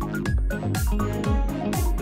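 Background music with a steady, fast beat of deep kick drums, about four a second.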